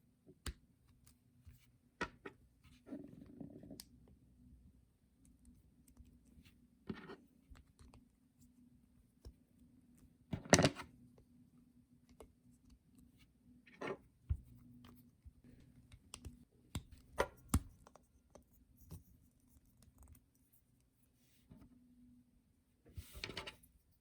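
Plastic Kid K'Nex building pieces being handled and snapped together: scattered clicks and snaps a few seconds apart, the loudest about ten seconds in, over a faint steady hum.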